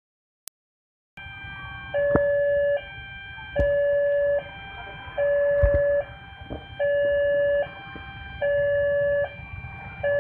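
Railway level-crossing warning alarm starting about a second in: an electronic signal alternating between a low, louder tone and a higher, quieter tone a little under once a second, warning that a train is approaching. A few sharp knocks sound in the low traffic noise beneath it.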